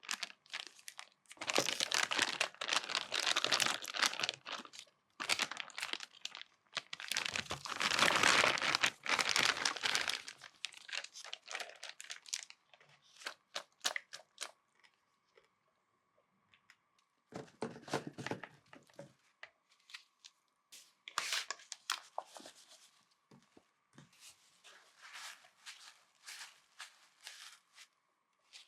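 Crinkling and rustling from close-up kitchen food-prep handling, in irregular bursts that are loudest in the first third, then sparser. A faint steady hum sits underneath from about midway.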